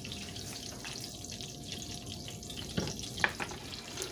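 Butter and oil sizzling in a stainless steel skillet, heated and ready for frying, with a steady crackle. A couple of short knocks come near the end.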